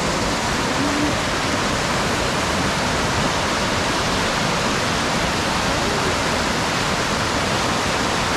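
Steady rushing of a waterfall, a loud, even roar of falling water.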